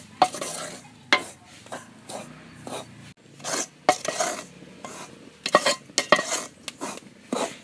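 Coconut-shell ladle scraping and stirring dry rice flour in a wide pan: a run of short, irregular rasping strokes, roughly one or two a second.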